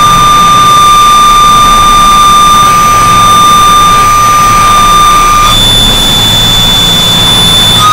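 Harsh noise music: a loud, dense wall of distorted noise under a sustained high feedback whine that holds one pitch, switching to a higher whine about five and a half seconds in.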